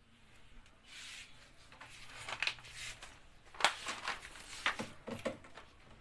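Handling noise while the phone is moved: rubbing and rustling with a few sharp clicks, the sharpest about three and a half seconds in.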